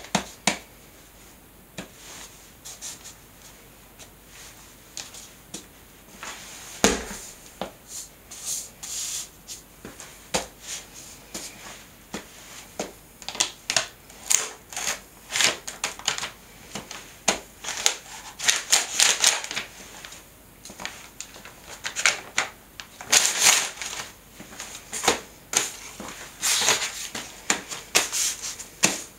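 Adidas sneakers stomping and grinding on a sheet of photo paper on a tile floor: the paper crinkles and rustles in irregular bursts as the soles twist and scuff over it. One heavier stomp lands about seven seconds in.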